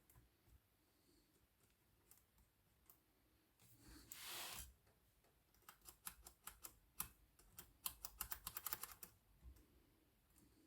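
Olivetti Lettera 22 portable typewriter mechanism clicking: a short scraping noise about four seconds in, then a run of sharp clicks that thickens into a quick burst near the end.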